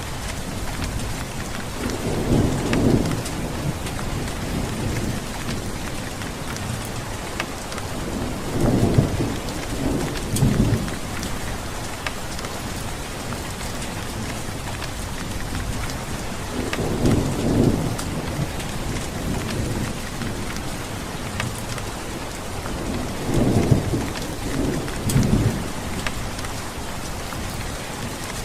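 Steady heavy rain hissing, with fine drop ticks on a hard surface. Low thunder rolls in four times, each rumble swelling for a second or two before fading back under the rain.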